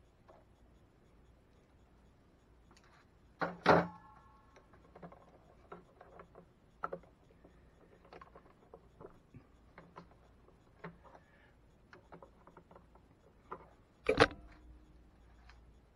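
Small screwdriver and wire ends clicking and tapping as they are worked into the terminals of a plastic inverter wiring box. Two louder knocks stand out, one about three and a half seconds in with a brief ring after it and the other near the end.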